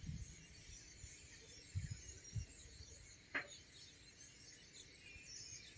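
Faint birdsong: scattered distant chirps, with one clearer short call a little past halfway. A few low bumps on the microphone.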